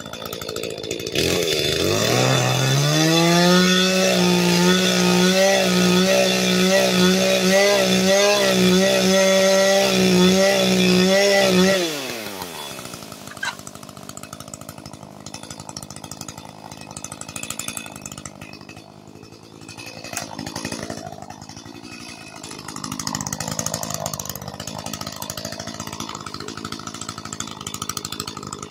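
Gasoline chainsaw throttled up about a second in and held at high revs for about ten seconds, with slight wavering in pitch, then let off so the engine speed drops away.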